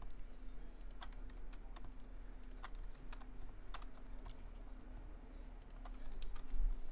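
Scattered clicks of computer keyboard keys being pressed at an uneven pace, as edge loops are selected and deleted in Blender. A low steady hum runs underneath.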